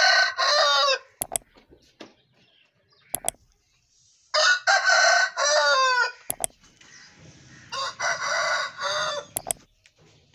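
Aseel rooster crowing again and again: long, loud crows about four seconds apart, each bending down in pitch at its end, with short sharp clicks in the gaps between them.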